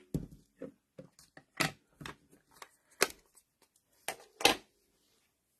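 Handling noise at a papercraft table: a string of irregular taps and clicks as card pieces and tools are picked up and set down, with three louder knocks.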